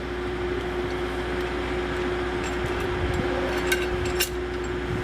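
Steady mechanical hum with a constant tone, and two sharp metallic clicks near the end.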